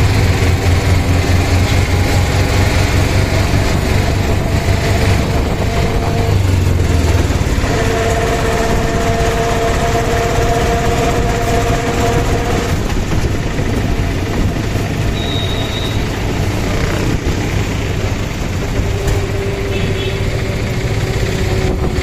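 Auto-rickshaw engine running as it drives along a town street, heard from inside the open passenger cab, with traffic around it. A steady tone holds for about five seconds midway.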